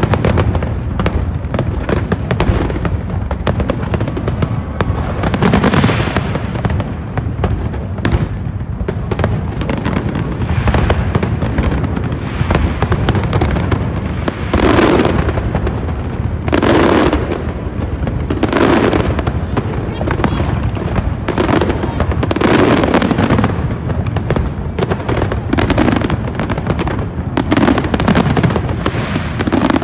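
Fireworks display: aerial shells bursting in a dense, continuous run of bangs and crackles over a steady low rumble. Bigger booms come about every two seconds from about halfway on.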